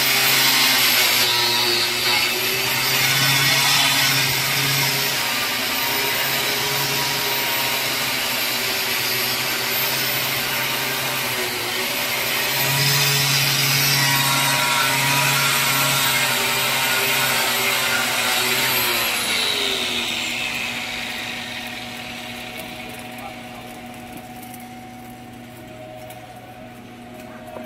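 Angle grinder running against a steel pipe-to-flange weld with a steady whine, then spinning down with a falling pitch about 19 seconds in. A quieter steady hum carries on after it stops.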